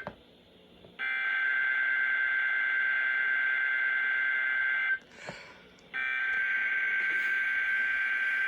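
Emergency Alert System SAME header: the harsh digital data screech that encodes the alert. It comes as two bursts of about four seconds each, with about a second's pause between them, here carrying a National Weather Service tornado watch (TOA).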